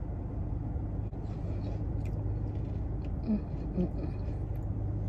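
Steady low hum of a car idling, heard inside the cabin. Faint rustles and soft ticks come from a tortilla-wrapped burrito being handled, and there are two brief soft hums from the eater a little past halfway.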